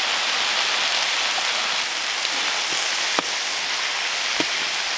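Chicken strips, bell peppers and onion sizzling steadily on a hot steel griddle disc, just splashed with a little juice, with a couple of sharp clicks from a metal spatula on the griddle in the second half.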